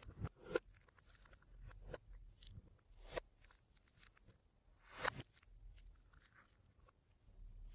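Fluffy slime being pressed and stretched by hand, giving scattered crackles and little pops, with four sharper ones about 0.2, 0.6, 3 and 5 seconds in.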